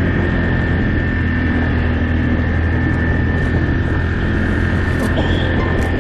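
ATV engine running steadily under way, with a constant high whine over the low engine note.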